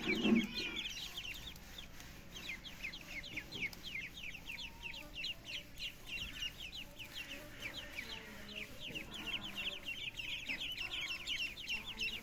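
A group of chicks peeping continuously, many short high falling calls overlapping, several a second. There is a brief low thump right at the start.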